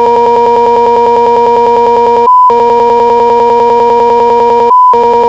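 A man's long, held goal shout, 'goool', kept on one unchanging pitch as if stretched by editing. It is cut twice by short, loud, pure beep tones, about two seconds in and again near the end.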